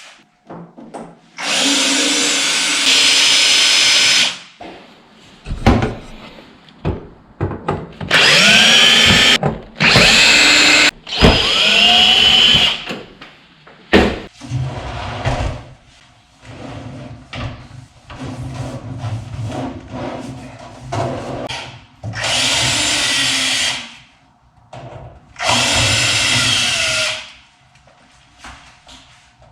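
Power drill/driver running in repeated bursts of one to two seconds, its motor pitch rising and falling, with clicks and knocks in between, as the microwave oven's casing is opened.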